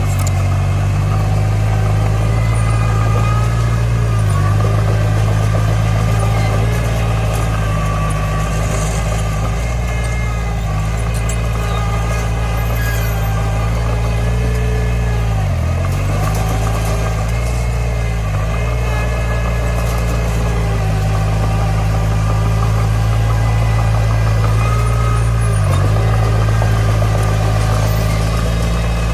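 Bulldozer's diesel engine running steadily, with a low, even drone. Its pitch dips briefly about three times, twice past the middle and once near the end.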